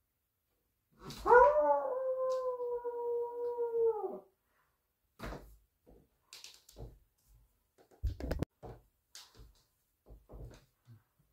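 A person's wolf-howl impression: one long howl of about three seconds starting about a second in, rising briefly at the onset, held steady, then dropping away at the end. Several short knocks and clicks follow.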